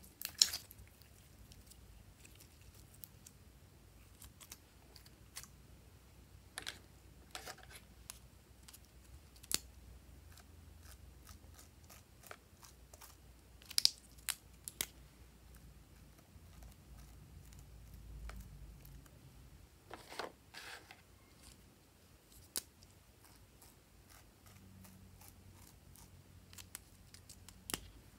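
Hands working glossy slime and handling small plastic squeeze tubes: scattered soft clicks, pops and squishes with quiet stretches between, a few of them sharper.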